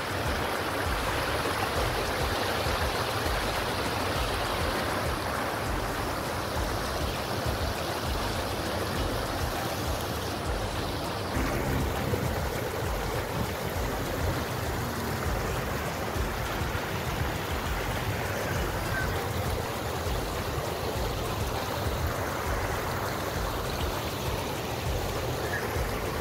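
Water of a small rocky stream rushing over stones, a steady rushing noise that shifts slightly about eleven seconds in.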